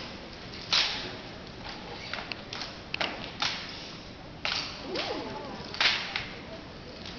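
Drill rifles smacking into hands as a drill team catches, slaps and spins them: about seven sharp smacks at uneven intervals, loudest near the start and about six seconds in.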